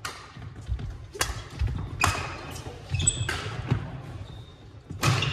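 Badminton rally: rackets hit the shuttlecock five times with sharp pops about a second apart, each echoing in the hall. Duller thuds of footsteps on the wooden court floor fall between the hits.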